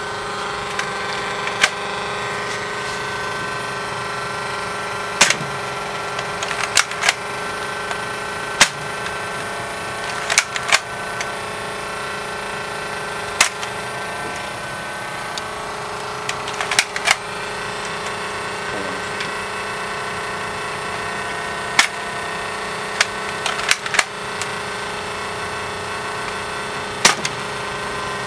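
Sharp, short clicks at irregular intervals, a few seconds apart and sometimes in quick pairs, over a steady mechanical hum with several held tones.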